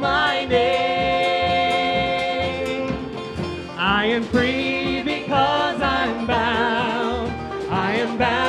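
Worship band playing a country-gospel song with a singer. The singer holds one long note, then sings sliding, wavering runs over the steady beat of the band.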